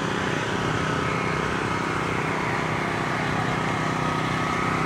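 Steady drone of an engine running at a constant speed, with a faint high whine over it.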